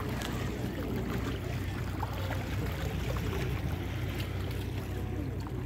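Steady low rumble under an even wash of water and wind noise at the sea's edge, with no distinct events.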